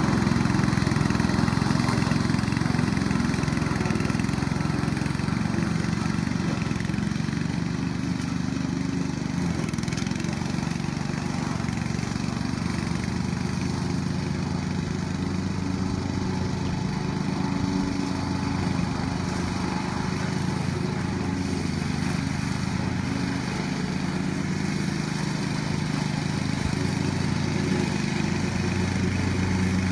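Riding lawn mower's Loncin 6.5 hp single-cylinder engine running steadily while mowing. It grows slightly fainter in the middle and louder again near the end.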